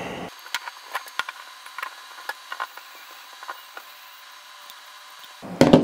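Irregular small metallic clicks and ticks of a precision screwdriver turning little M3 screws into a metal bracket, then a louder knock near the end.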